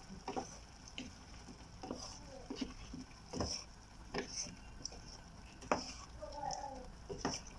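Wooden spatula stirring chicken, potatoes and carrots in a nonstick frying pan, with irregular light knocks of the spatula against the pan.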